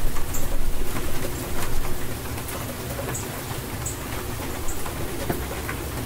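Steady rain with scattered drops ticking close to the microphone, under a low rumble of thunder that is loudest in the first two seconds and then settles to a steady level.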